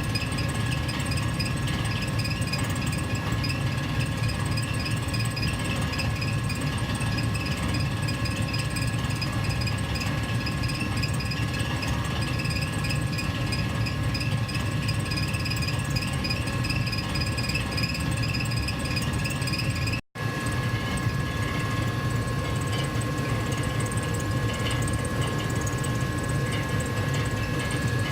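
Gas furnace running steadily: a low blower rumble with a whir and two steady tones over it. The sound cuts out for a split second about twenty seconds in.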